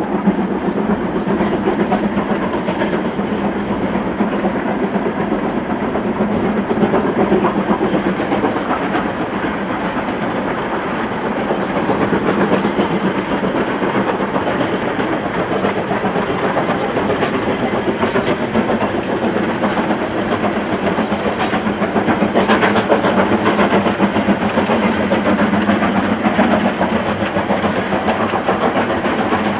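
BR Standard Class 4 2-6-4T steam tank locomotive working a goods train, its exhaust and the rolling wagons making a steady, continuous din.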